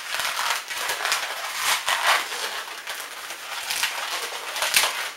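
Latex modelling balloon rubbing and squeaking in the hands as two two-finger bubbles are twisted together with some force: an irregular run of scratchy creaks.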